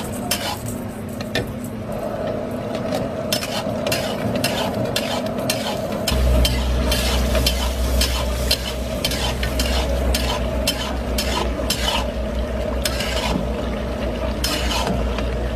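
A spatula stirs and scrapes mutton and yogurt gravy in a karahi, with many sharp clicks of the spatula against the pan, while the meat sizzles in oil. A low rumble joins about six seconds in.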